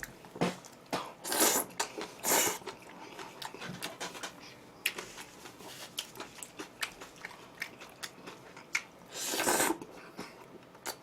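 A person chewing and crunching food close to the microphone: wet mouth clicks throughout, with louder crunching bites about one and a half and two and a half seconds in and again near the end.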